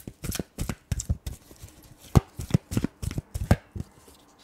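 Tarot and oracle cards being handled and laid down on a glass tabletop: an irregular run of sharp clicks and taps, the loudest in the middle of the stretch.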